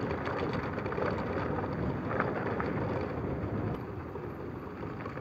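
Motorcycle coasting slowly in neutral on a broken, stony road: wind rushing over the helmet microphone and tyres rolling on rough ground, with a few light rattles.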